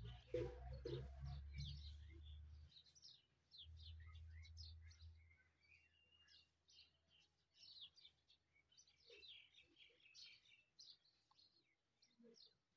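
Faint, high, short bird chirps repeating irregularly throughout, over a low rumble in the first few seconds. There is a brief knock just after the start.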